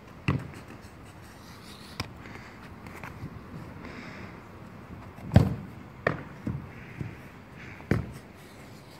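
Football being kicked and bouncing on paving and against a wall: a string of sharp thuds at uneven intervals, the loudest about five seconds in.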